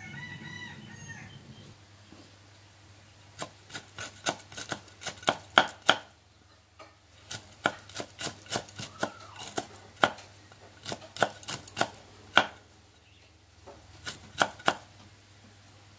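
Cleaver chopping young green tamarind pods on a thick round wooden chopping block: sharp knocks in uneven runs with short pauses, starting a few seconds in. A brief high-pitched call sounds in the first two seconds.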